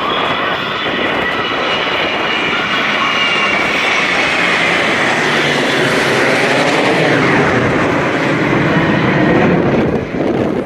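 A formation of Navy carrier aircraft flying past with a loud, steady engine rush; its pitch falls as the formation passes, about five to seven seconds in.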